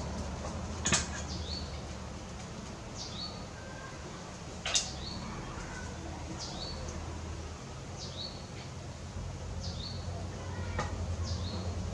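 A bird repeatedly gives a short, high call that sweeps downward and ends in a brief hook, about every one to two seconds. Two sharp clicks stand out, about one second and five seconds in, over a steady low hum.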